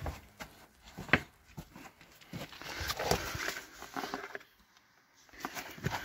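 Footsteps scuffing and knocking over loose rocks on a cave floor, with clothing and handling rustle. There is a short pause about three quarters of the way through.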